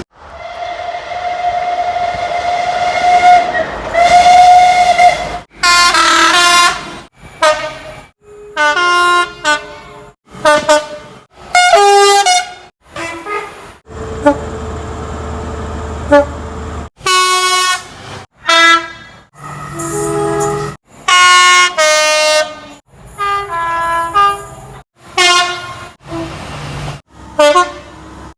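British train horns sounded one after another in quick succession, mostly short two-note high-low blasts, each cut off abruptly as the next begins. The first five seconds or so hold one long single-note blast over a hiss.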